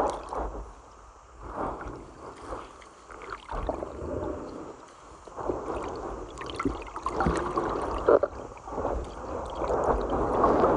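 Muffled sloshing and gurgling of creek water that swells and fades, with scattered small knocks.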